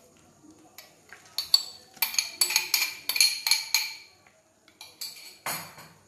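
A spoon knocking and scraping against a bowl while the last of the omelette mixture is emptied into the pan. A few sharp clinks, then a quick run of ringing clinks about four a second, then two louder knocks near the end.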